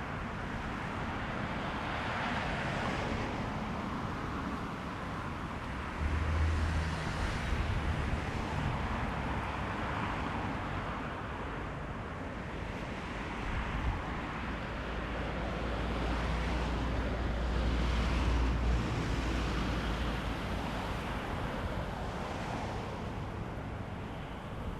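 Strong wind gusting over the microphone: low rumbling buffets, heaviest about six seconds in and again about fifteen to nineteen seconds in, over a rushing hiss that swells and fades with the gusts.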